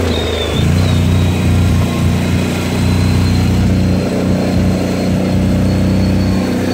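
Can-Am 1000 XMR's V-twin engine running steadily, a low drone; the engine note dips and shifts briefly just after the start.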